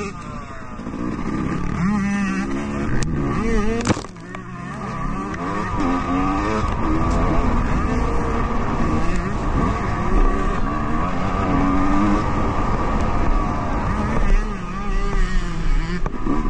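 Motocross dirt bike engine heard from the rider's own bike, revving hard and shifting, its pitch rising and falling again and again as the throttle opens and closes. A sharp knock about four seconds in, and the engine briefly drops off.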